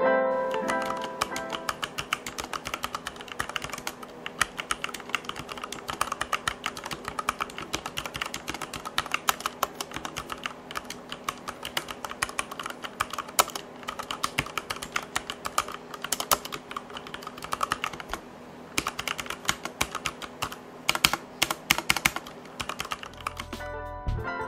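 Typing on an XPG Summoner mechanical keyboard with Cherry MX Red switches: a dense, irregular run of key clacks, with quiet background music under it.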